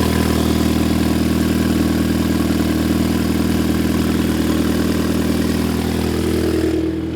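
2006 Volkswagen Jetta's 2.0T FSI turbocharged four-cylinder engine idling steadily just after starting on freshly fitted spark plugs: it runs without misfiring. Near the end it gets a little quieter.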